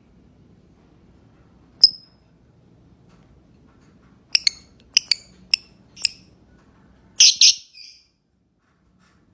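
Lovebird giving short, sharp, high chirps: a single one, then a run of about six, then a louder, longer burst of chirping near the end.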